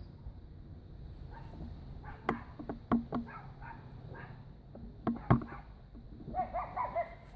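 A few sharp knocks, then near the end a quick run of short, high whining cries from an animal.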